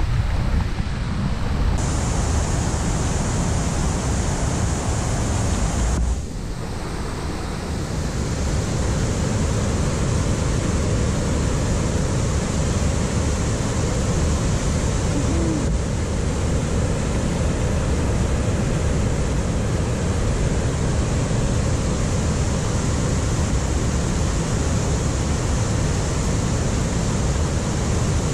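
Steady rushing noise of wind buffeting the camera microphone over the river, mixed with moving water from the weir; it dips briefly about six seconds in.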